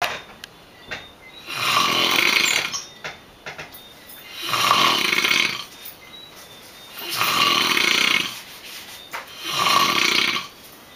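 Someone asleep, snoring loudly in a steady rhythm: four long snores, each about a second long, coming roughly every two and a half seconds.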